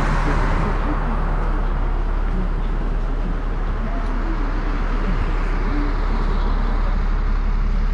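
NEFAZ 5299 city bus idling at the stop with its doors open: a steady low engine hum, with a hiss that fades out in the first half second and light street noise.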